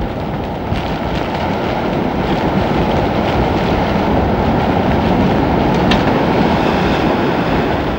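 Hurricane-driven surf breaking and washing over shoreline wreckage in strong wind: a steady, heavy rush of water and wind, deepest in the low range.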